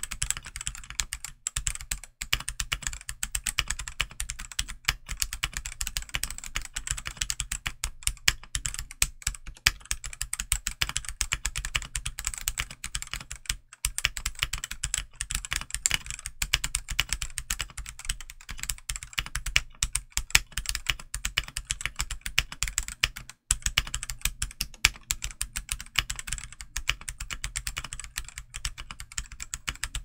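Steady, fast typing on a stock Redragon K673 Pro 75% mechanical keyboard with Redragon Red linear switches and double-shot ABS OEM-profile keycaps: a continuous stream of key clacks, broken by a couple of brief pauses.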